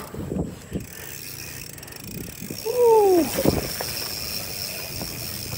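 Trek Super Marlin 5 mountain bike riding a bumpy grass-and-dirt trail: tyre rumble, a few knocks from the bike in the first second, and a steady freewheel buzz as it coasts. About three seconds in comes a short falling whoop, the loudest sound.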